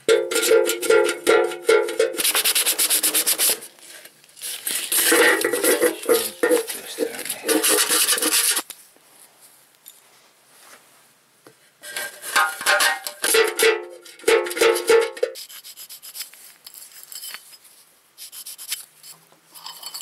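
Metal furnace parts being handled and worked: a steel bolt and washer scraped and rattled against a metal can. Several bursts of rapid rasping clicks, each a second or more long, over a ringing tone, with quiet gaps between.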